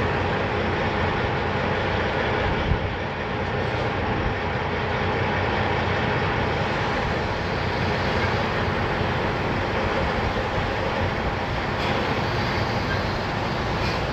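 Steady rumble and road noise of a semi truck driving at a constant speed.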